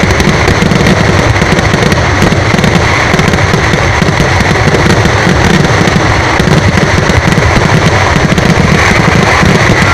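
Fireworks going off in a dense, continuous rapid crackle of bangs, very loud.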